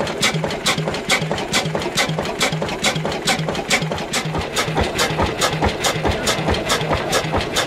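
Vintage slow-running stationary diesel engine running with an even, rhythmic knocking, about four to five sharp beats a second over a pulsing low note.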